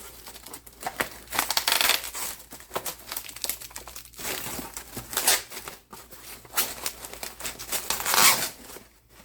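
Packaging crinkling and rustling as a fire alarm horn is unwrapped by hand, in irregular bursts with a couple of louder crumples.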